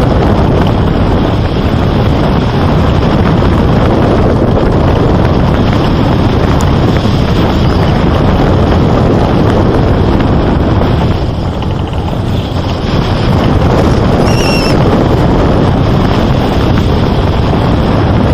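Loud, steady rushing noise without any clear pitch, with a brief high chirp about fourteen seconds in.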